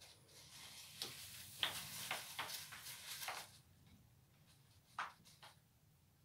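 Paper tissue rustling and a string of light clicks and taps as a watercolour brush is blotted and handled, then two sharper taps about five seconds in.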